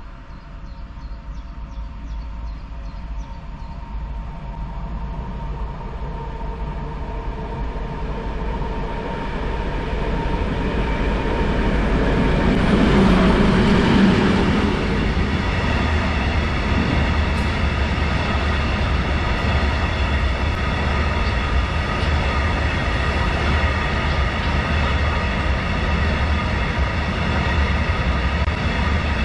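A freight train passing at speed. The locomotive's sound grows as it approaches and is loudest about halfway through as it goes by. A long rake of covered steel-coil wagons then rolls past with a steady wheel-on-rail rolling noise.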